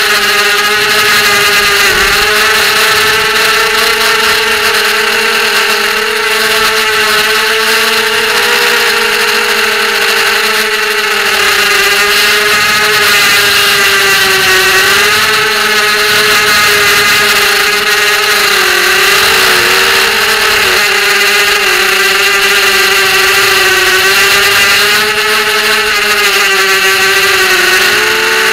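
FPV racing quadcopter's brushless motors and propellers whining steadily, heard up close from the onboard camera, the pitch dipping and rising slightly as the throttle changes.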